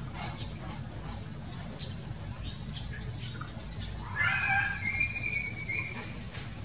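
An animal call about four seconds in, lasting about two seconds, over a steady low hum.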